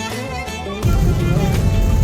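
Background music with a melody line, which gets louder with a heavy low end coming in a little under a second in.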